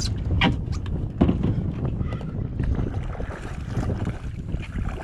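Wind buffeting the camera microphone over water against a plastic fishing kayak's hull. A few sharp knocks in the first second and a half, the loudest about a second in, as the kayak's hatch lid is handled.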